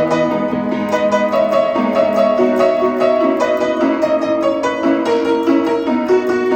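Background music led by piano or keyboard, a quick run of plucked-sounding notes at a steady level.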